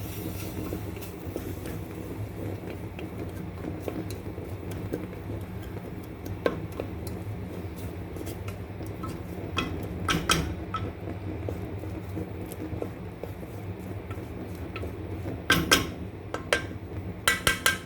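A spoon clinking and scraping against a cooking pot as chopped onion is stirred in oil: a few knocks around the middle and a quick run of them near the end, over a steady low hum.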